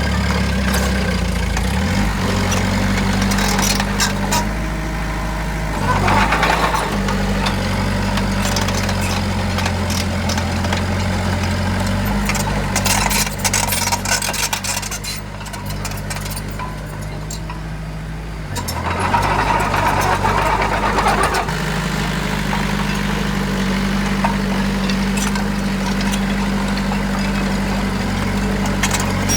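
Heavy diesel engine of earthmoving machinery running steadily. Its note shifts several times, and it surges louder and noisier briefly around six seconds in and again for a couple of seconds after the middle.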